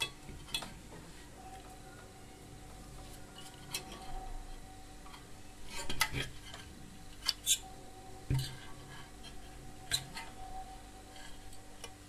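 Scattered light metallic clicks and taps, about eight over several seconds, as a microwave oven magnetron's sheet-metal casing and open filter-box cover are handled and turned over.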